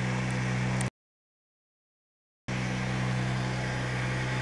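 Speedboat engine running at a steady speed under a hiss of water and wind. About a second in, the sound cuts out to dead silence for about a second and a half, then the engine returns unchanged.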